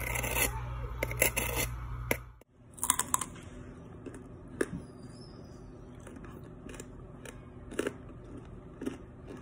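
Crispy pork belly skin crackling and snapping as a knife cuts through it, a dense run of crisp cracks over a low hum. About two and a half seconds in this gives way to loud crunches of the skin being bitten, then occasional single crunches as it is chewed.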